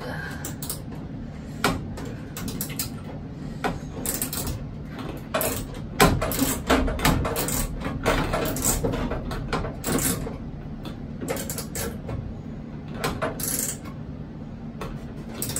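A hand screwdriver tightening a screw into the metal ELT mounting tray: irregular metallic clicks and scrapes, busiest in the middle, over a steady low hum.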